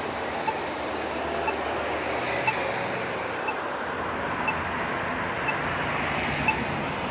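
Polara accessible pedestrian signal push button sounding a short beep about once a second, over steady road traffic noise.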